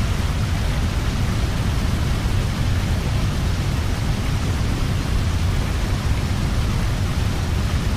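A steady, loud rushing noise with a deep rumble underneath and no separate sounds in it.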